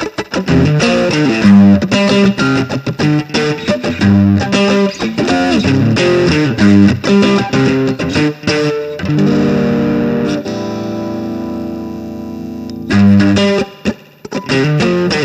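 Electric guitar played through an ARP Electronic Super Crunch overdrive pedal: quick picked riffing and chords, then a chord left ringing out for a few seconds from about nine seconds in, then quick riffing again.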